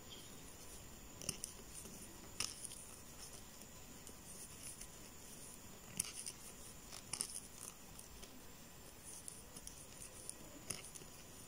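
Faint, scattered scratchy clicks and rustles of a crochet hook working nylon cord, making one double crochet stitch after another.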